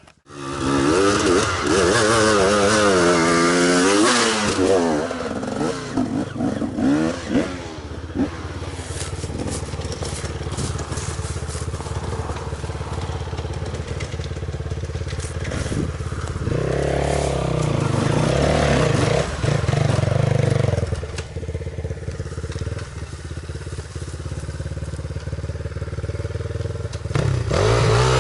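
Enduro motorcycle engine being ridden, revving up and down quickly for the first several seconds, then running lower and steadier. It revs up again in the middle and once more near the end.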